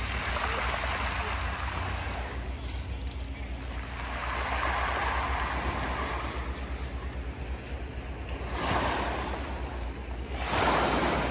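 Small waves breaking and washing up a pebble beach, swelling and fading in four surges.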